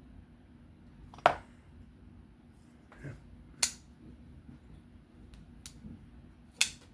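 Three sharp clicks, one about a second in, one midway and one near the end, with a few fainter clicks between: a freshly reassembled folding knife being handled after its pivot screws were tightened.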